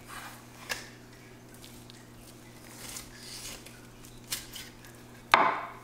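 Fillet knife cutting along a whole peacock bass on a wooden cutting board: a few short, scratchy strokes as the blade works through the skin and flesh, then a louder, sharper knock near the end.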